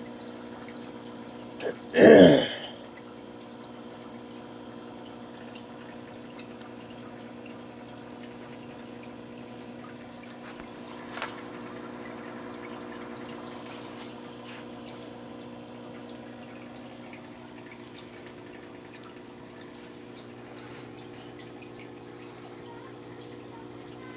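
Steady hum of an aquarium pump motor with water trickling and dripping in the tank. About two seconds in, one short, loud call cuts across it.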